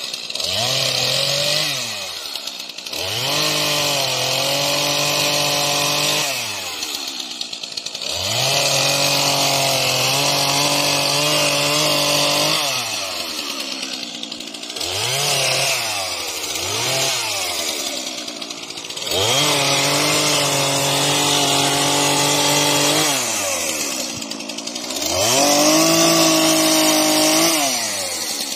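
Stihl MS 231 two-stroke chainsaw revving up and held at high speed through several long cuts into maple, dropping back toward idle between them with a few short throttle blips.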